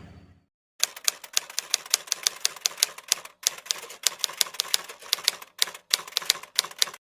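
Rapid typewriter key clacks, about four to five a second with a few short breaks, a typing sound effect that starts and stops abruptly.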